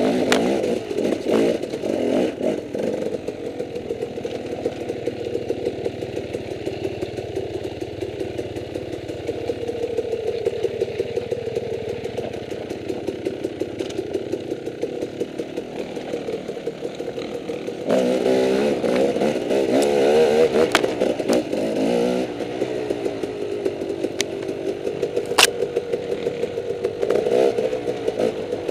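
Dirt bike engine running under changing throttle on a steep, rutted downhill trail, the pitch rising and falling, with a louder run of revving about two-thirds of the way through. A single sharp knock comes near the end.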